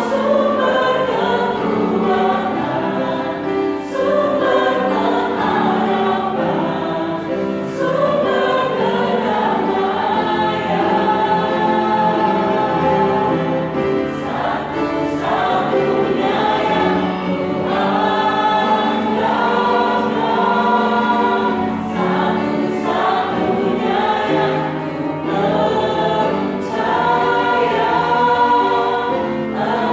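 Church choir singing a gospel praise song, many voices together in sustained phrases.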